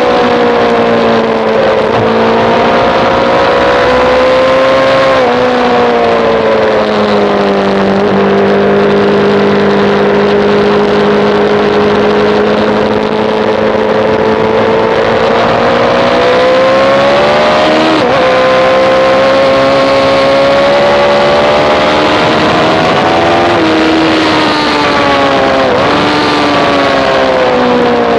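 Sportbike engine under load at track speed, heard from on board over a rush of wind. Its pitch steps a few times early on with gear changes, holds steady through a long stretch in the middle, then climbs and drops again with throttle and shifts toward the end.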